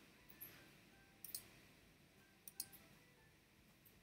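Faint clicking against near silence: a few sharp clicks about a second apart, some in quick pairs.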